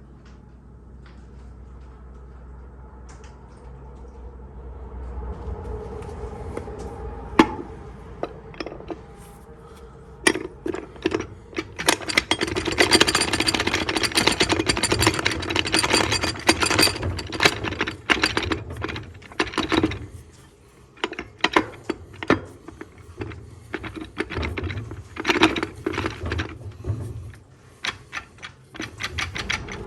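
Steel parts of a TH400 automatic transmission clattering and rattling as the clutch pack and drum are worked into place by hand. There is a dense, fast rattle in the middle, then scattered clinks and rattles.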